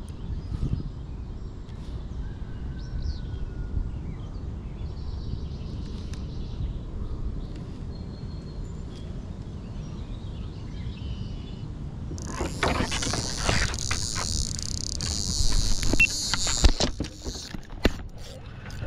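A baitcasting fishing reel being cranked: a high whirring with a fast ticking, starting about twelve seconds in and lasting about five seconds. Before it there is a steady low rumble with a few faint bird chirps.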